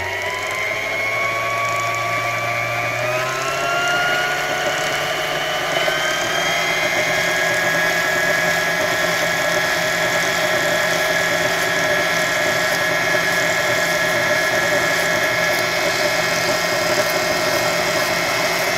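Singer Heavy Duty sewing machine's electric motor running under the foot pedal, spinning the bobbin winder: a steady motor whine that rises in pitch over the first several seconds as it speeds up, then holds. The bobbin is winding with the needle disengaged.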